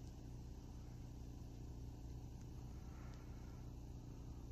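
Quiet ambience: a faint, steady low rumble.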